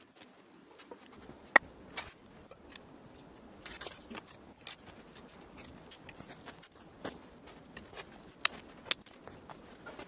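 Dry sticks and birch bark clicking and cracking, a few separate sharp snaps spread irregularly, the loudest about a second and a half in.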